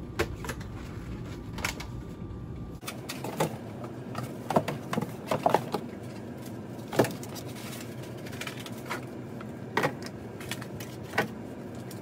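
Groceries being handled and put away: scattered light knocks, clicks and packaging rustles as items are picked up and set down.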